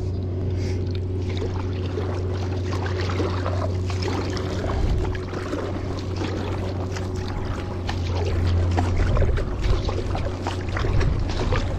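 Surfski paddling: paddle blades dipping and splashing and water rushing along the hull, over a steady low rumble on the camera microphone.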